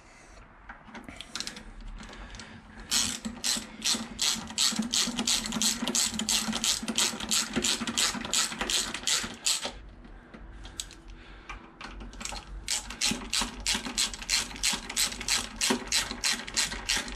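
Hand socket ratchet with an Allen-key socket clicking rapidly as a bolt is wound in. There are two long runs of even clicks, about five a second, with a short pause between them.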